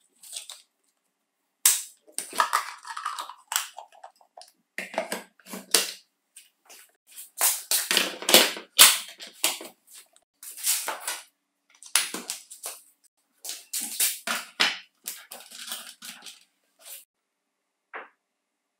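Hard plastic parts of an Electrolux Ergorapido cordless stick vacuum being handled and snapped together: a run of sharp, irregular clacks and rattles, with one last click near the end.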